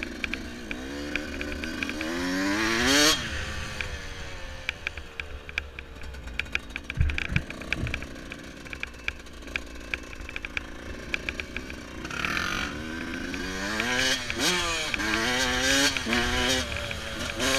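Yamaha YZ125 two-stroke dirt bike engine being ridden over a rough trail, revving up hard to a peak about three seconds in, then easing off. From about twelve seconds in it accelerates again in a series of rising revs through the gears, with stones and chassis rattles clicking throughout and two dull thumps about seven seconds in.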